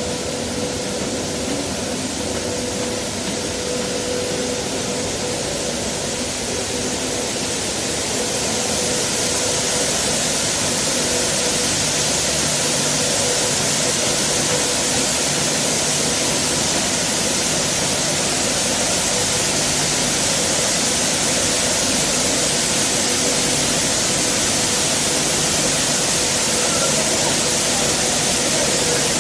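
Steady rushing noise of a maize milling plant's machinery running, with a constant mid-pitched hum; it grows louder about eight seconds in and then holds.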